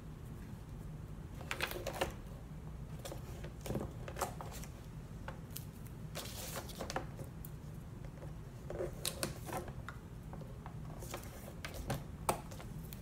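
Paper envelopes being handled and taped together by hand: scattered rustles and light taps, with a longer crinkling rustle about six seconds in, over a steady low hum.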